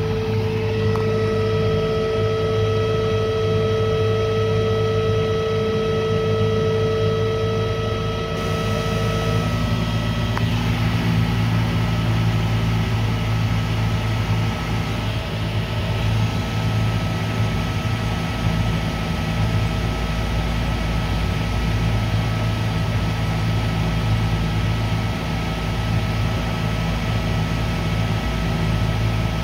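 Electric motor running on a variable frequency drive: a steady low hum, with a higher steady tone that stops about nine seconds in. The drive is feeding the motor low voltage, which the owner believes is overloading it.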